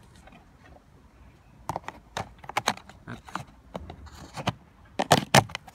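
A split plastic plant pot being handled and fitted around a branch: a run of sharp clicks and knocks of plastic, with a brief scraping rustle about four seconds in.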